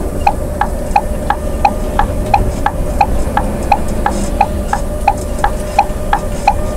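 Scania coach's diesel engine running on a mountain descent with the engine brake in use, heard from inside the cab as a steady low rumble. Over it a sharp, pitched ticking repeats evenly about three times a second.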